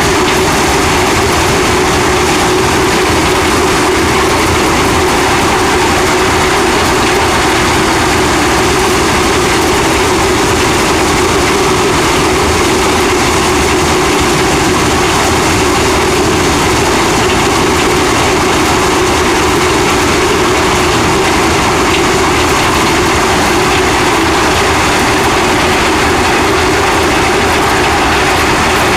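Heavy farm machinery running steadily: a loud, unbroken mechanical drone with a steady hum.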